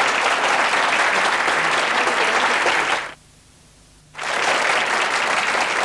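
Studio audience applauding, a dense steady clapping that cuts out abruptly for about a second a little past halfway, then starts up again.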